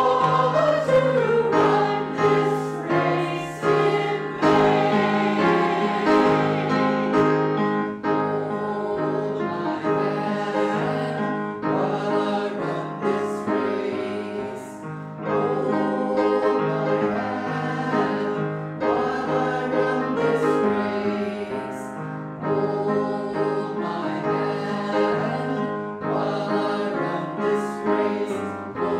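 A choir singing a worship song with piano accompaniment.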